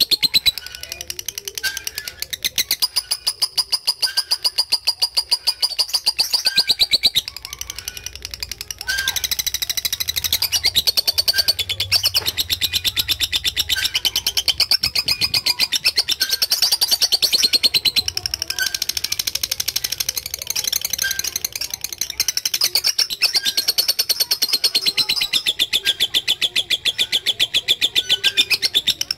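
Lovebird chattering in a long, very rapid trill of sharp repeated notes (the 'ngekek panjang' call), broken only by a few short dips.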